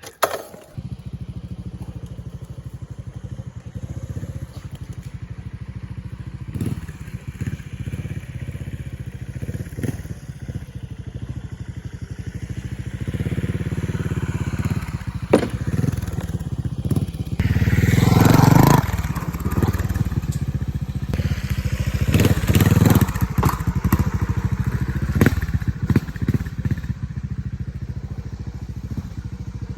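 A 4x4's engine runs steadily while towing the stripped car shell. It surges louder a few times past the middle, with crunching and scraping underneath and a few sharp knocks.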